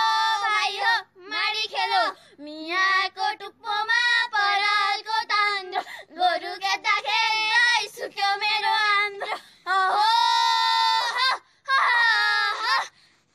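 Female voices singing the traditional Nepali song that goes with threshing millet by oxen, unaccompanied, in short wavering phrases with a long held note about ten seconds in.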